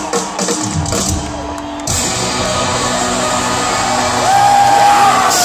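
Rock band playing live with loud distorted electric guitars and drums, recorded from the audience. The drums thin out briefly over the first two seconds, then the full band comes crashing back in.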